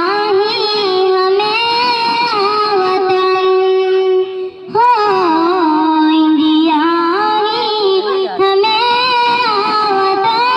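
A woman singing a patriotic Hindi song solo into a microphone, holding long, steady notes with short glides between them and a brief pause for breath about halfway through.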